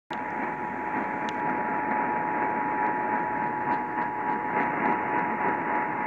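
Emergency Alert System two-tone attention signal (853 and 960 Hz sounded together) held steady, heard through an AM radio under constant static hiss. It signals the start of a Required Monthly Test.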